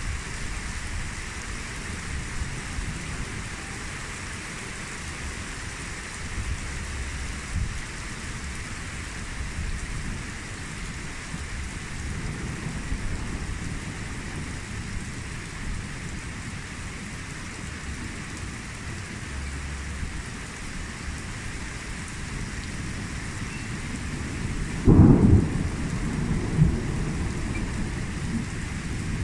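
Steady rain falling and pattering on surfaces during a thunderstorm. Near the end comes one loud, low clap of thunder, with a smaller rumble just after.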